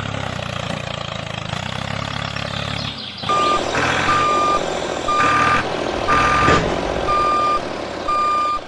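A vehicle's motor running steadily, then about three seconds in a reversing alarm starts beeping, a high tone about once a second, six beeps, some of them louder than others.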